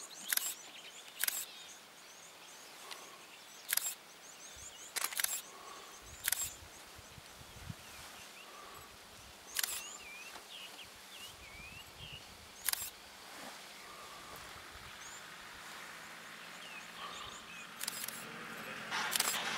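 Camera shutters clicking at irregular intervals, some singly and some in quick pairs, over faint bird chirping in the bush.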